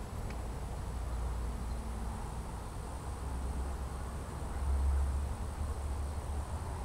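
Outdoor ambience: a steady low rumble that swells briefly about five seconds in, under a faint, steady, high-pitched insect drone.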